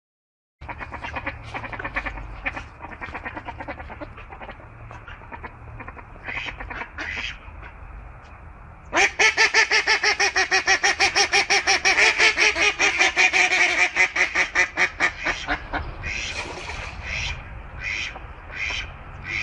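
Waterfowl calling. Scattered calls at first, then about nine seconds in a loud, rapid run of quacking calls, several a second, lasting some six seconds, followed by separate single calls a little under a second apart.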